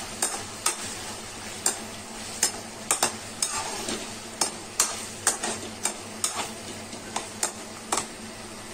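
Paneer, onion and spice stuffing frying in mustard oil in a pan, sizzling steadily. A spatula stirs it, giving irregular knocks and scrapes against the pan about twice a second.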